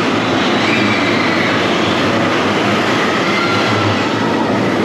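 Steady, loud rumbling din of amusement-park ride machinery, with faint high squeals gliding over it.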